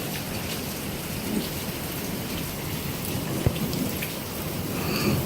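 Steady rain falling, with a low rumble of thunder underneath and a single sharp knock about three and a half seconds in.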